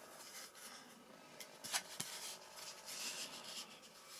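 Faint handling noise from a foam RC jet's fin and rudder being turned over and flexed at its foam hinge: soft rubbing and rustling, with a few light clicks near the middle.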